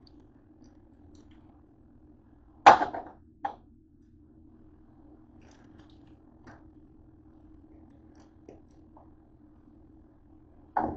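Metal baking sheet of tater tots clanking as it is handled on the counter: one loud sharp clank with a brief ring about three seconds in, a smaller knock just after, and another clank near the end, over a steady low hum.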